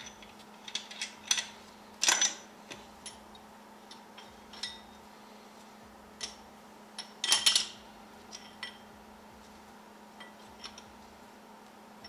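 Steel differential parts (bearing caps, bearing cups and rings) clinking and clanking as they are handled and set against the cast axle housing: scattered light metallic clicks, with two louder clatters about two seconds in and again about seven seconds in.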